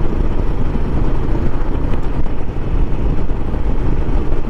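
Steady low rumble of wind and road noise over the microphone from a Royal Enfield Himalayan motorcycle riding at steady cruising speed, with its 411 cc single-cylinder engine running underneath.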